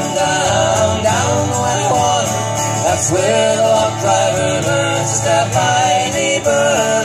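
Live acoustic country-folk band playing: two acoustic guitars strumming a steady rhythm with a sliding melody line over them.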